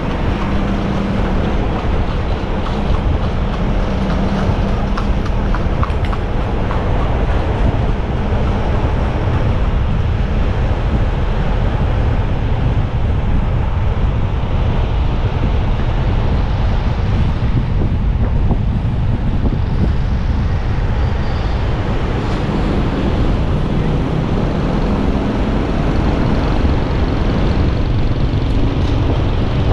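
Motorcycle riding noise: a loud, steady rush of wind on the microphone mixed with engine and road noise, heaviest in the low end.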